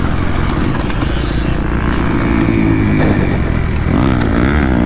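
Kawasaki KX250F dirt bike's four-stroke single-cylinder engine running hard on a motocross track. The pitch holds for a few seconds, then swings quickly up and down near the end as the throttle is worked.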